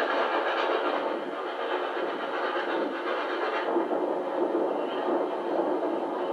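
Steady rushing noise of passenger trains running at speed on parallel tracks, wheels on the rails and air rushing past, heard from a carriage window. It is replayed videotape sound through a television speaker, with no deep bass.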